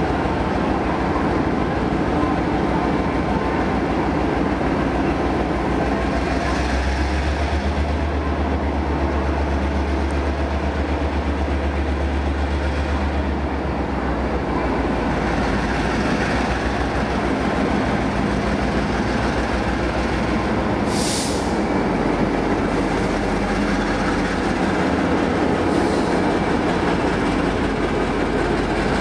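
Diesel-electric locomotive's engine running as it slowly pulls a passenger train away, with a deep steady drone that grows heavier for several seconds in the middle. A short high hiss about 21 seconds in, and a fainter one a few seconds later.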